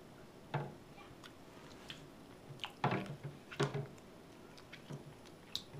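Water splashing and dripping in a stainless steel pot as a monkey's hands paddle and push a large toy egg around in it. There are a few sharper splashes, the loudest around three seconds in.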